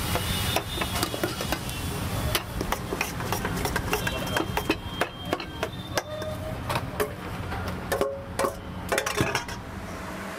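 Grilled paneer tikka pieces being tossed and mixed by hand in a steel bowl: a quick, irregular clatter of knocks against the metal, with the bowl ringing briefly now and then.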